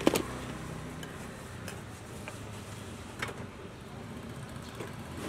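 Metal tongs clacking against a pot while scooping shredded carrot pickle into a baguette: one sharp clack at the very start, then a few lighter clicks spaced a second or more apart. A steady low hum lies under it.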